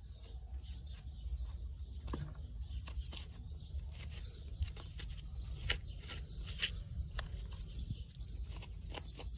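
Faint, irregular scratching and clicking from horse grooming, over a low rumble.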